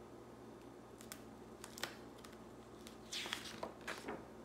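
A picture book's paper page being turned by hand: a soft swish and rustle about three seconds in, with a second brushing sound just after, and a couple of faint taps earlier.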